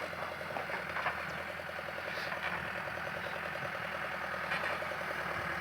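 Caterpillar 428C backhoe loader's diesel engine running steadily as the machine works, with a few faint knocks.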